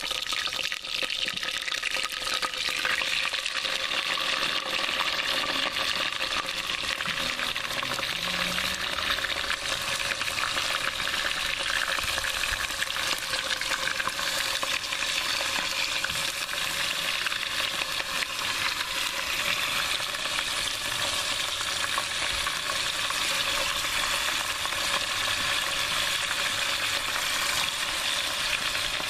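Oxtail pieces frying in hot olive oil in a cast-iron potjie pot: a steady, dense sizzle as the meat goes in to brown.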